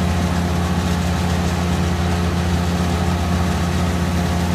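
Wood chipper's engine running steadily at an even pitch, with no chipping impacts.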